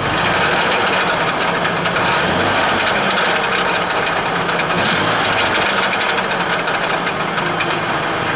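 Ford Taurus engine running, heard from underneath the car, with a steady metallic rattle that the owner suspects is the exhaust, coming from behind the engine.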